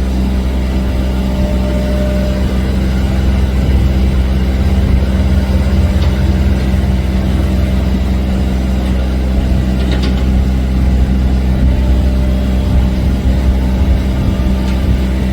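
A motor or engine running steadily at a constant pitch, starting abruptly just before and holding unchanged throughout.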